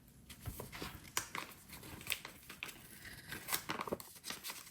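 Paper and packaging being handled, a run of short, irregular crinkles and rustles as a card and its wrapping are opened.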